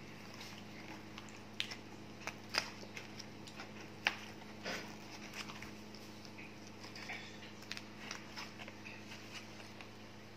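Plastic forks and spoons clicking and scraping against fried chicken in cardboard food boxes, with paper wrappers rustling, in a handful of sharp little clicks over a steady low hum.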